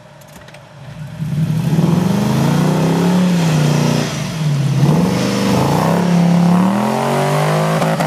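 Off-road 4x4 truck engine revving hard through the mud, its pitch rising and falling again and again as the throttle is worked. It sets in loudly after a quiet first second or so.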